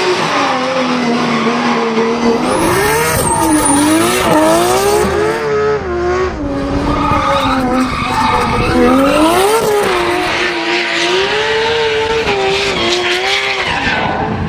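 Nissan RB26 twin-turbo straight-six in a BMW M3 drift car, revving hard and dropping again and again as the throttle is worked through a drift, with tyres squealing as they spin and slide.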